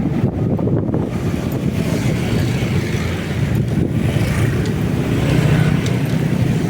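Motorcycle running steadily on the move, with wind rushing over the microphone.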